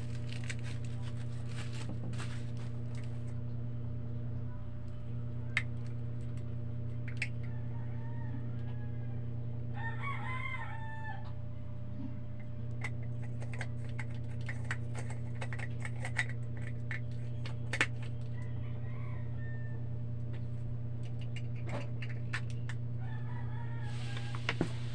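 Scattered small clicks and taps of a camera lens being handled and turned in the hands, over a steady low hum. A rooster crows in the background about ten seconds in, with fainter calls later.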